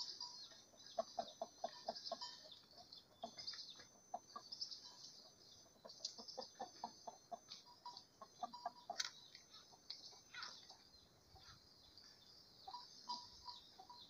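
Faint bird calls with short, scattered clucks and chirps, over a steady high-pitched hum.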